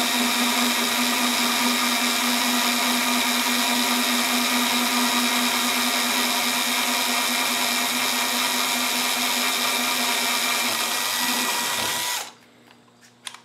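DeWalt cordless drill running at one steady speed, a small bit boring a pilot hole through soft aluminum pipe. The motor's whine cuts off about twelve seconds in.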